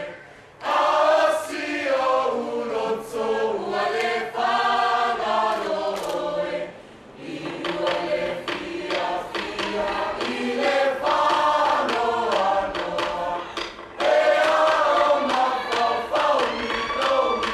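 A large mixed group of school students singing a Samoan action song together, in phrases broken by short pauses about seven and fourteen seconds in.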